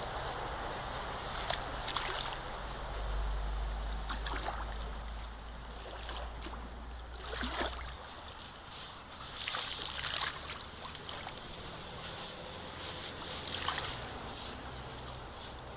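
German Shepherd digging in sand, with short bouts of scraping and scattered sand from its paws, over small waves lapping at the shore. A low wind rumble on the microphone comes and goes in the first half.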